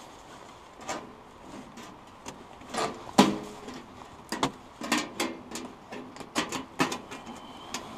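Metal stovepipe being set onto the flue collar of a portable hot-tent stove: a series of metal clanks and scrapes. The loudest clank, about three seconds in, rings briefly, and several quicker knocks follow as the pipe is twisted into place, with a short thin metal squeak near the end.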